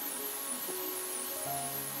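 Background music of held notes, the chord shifting about a second and a half in.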